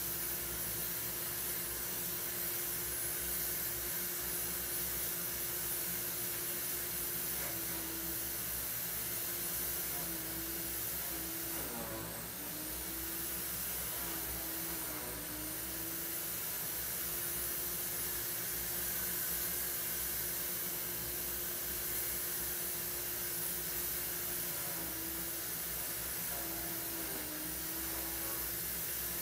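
Steady hum and hiss of a running motor-driven appliance; the hum's pitch sags briefly a few times, around the middle and again near the end.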